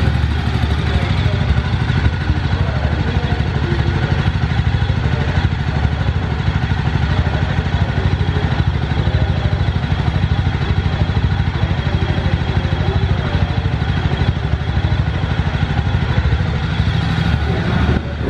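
2020 Jawa Classic's single-cylinder engine idling steadily through its exhaust: an even, low, fast beat of exhaust pulses.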